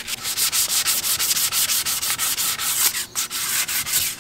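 Sandpaper rubbed by hand back and forth along a bare wooden canoe paddle blade, smoothing the wood, in quick, even strokes several a second, with a brief pause about three seconds in.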